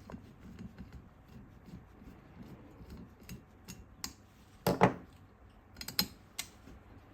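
Small metal parts and a hand tool clicking and tapping while screws are taken out of an aluminium rail section, with a sharper click just under five seconds in.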